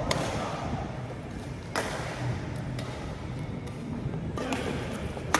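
Badminton rackets hitting a shuttlecock during a rally: several sharp smacks a second or more apart, three of them loud, each ringing on briefly in a large echoing hall.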